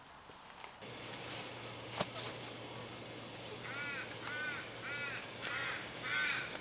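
A bird giving a series of short cawing calls, one every half second or so, starting a little under four seconds in. A single sharp click sounds about two seconds in.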